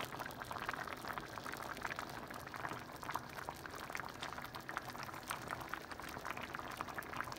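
Chicken cabbage soup boiling in a stainless steel pan: a steady stream of small bubbling pops.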